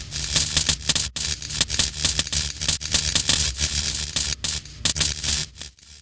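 Sound effect of crackling, hissing sparks over a low rumble, thick with small crackles, fading out near the end.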